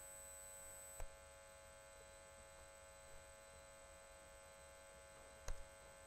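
Near silence: a steady electrical hum with two short knocks, one about a second in and one near the end.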